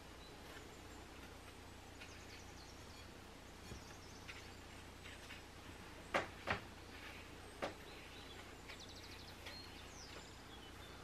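Faint rustling and scratching of bread crumbs as pandesal dough balls are rolled and coated in them in a bowl, with a few light taps, the loudest two close together a little past the middle.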